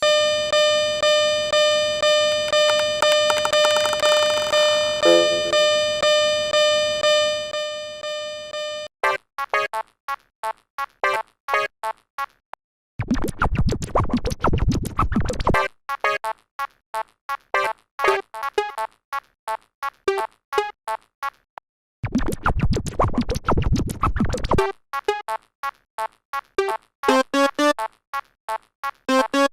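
Synthesized electronic tones: a steady ringing tone pulsing about twice a second for the first nine seconds, then a fast run of short keyboard-like notes, broken twice by a few seconds of rushing noise.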